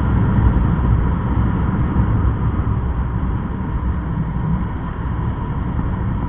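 Riding noise from a moving motorcycle: wind buffeting the microphone in a steady low rumble, with a faint steady tone above it.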